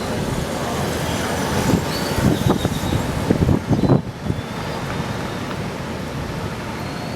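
Heavy surf breaking in a continuous roar, swelling louder for a couple of seconds in the middle, with a few short high whistles over it.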